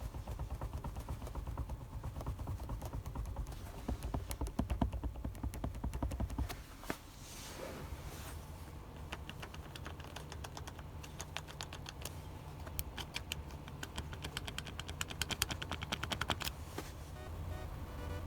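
Loose plastic interior trim in a Renault Kangoo 3 cabin rattling and clicking in quick irregular runs over a steady low rumble: the trim piece is moving on its clips.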